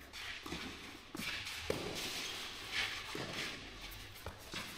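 Tennis players' shoes stepping and scuffing on an indoor clay court, with a few sharp knocks.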